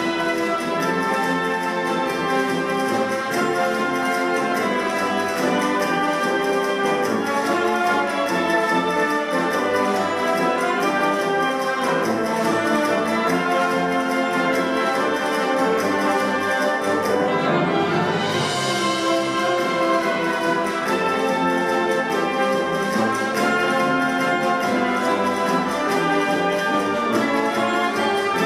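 Community concert band (wind ensemble) playing live, with brass, woodwinds and percussion together in held chords. A bright swell comes in about two-thirds of the way through.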